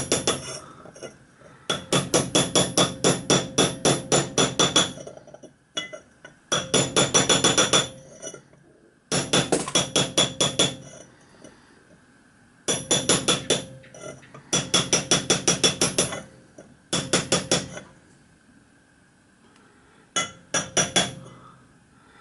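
Quick light hammer taps driving a copper end plate into a copper boiler tube. They come in short runs of about five or six taps a second with pauses between, and each tap has a bright metallic ring.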